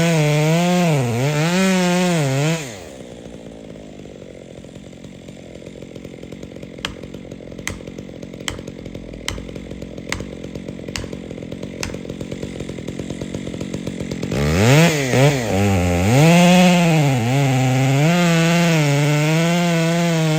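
Two-stroke chainsaw cutting at full throttle, its pitch wavering under load, then dropping to idle about three seconds in. A row of sharp ticks sounds while it idles. About fourteen seconds in it revs back up and cuts again, then stops at the end.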